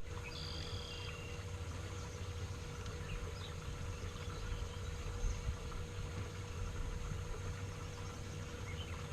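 Quiet outdoor lake ambience: a steady low rumble with a faint steady hum, and a few faint high chirps in the first second or so.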